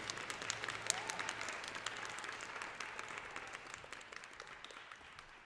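Audience applauding with dense, irregular clapping that gradually dies away toward the end.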